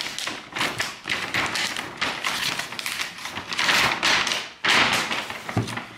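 Large brown paper shopping bag rustling and crackling as its sealed, folded top is torn and pulled open by hand, in a run of irregular crinkles that are loudest a little past the middle.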